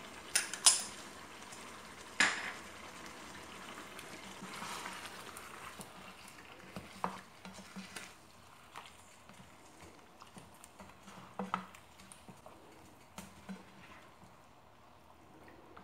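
Black spatula stirring a thick chicken, yogurt and tomato masala in a non-stick pot, with a few sharp clicks at the start and light scattered knocks of the spatula against the pan. A soft sizzle runs underneath.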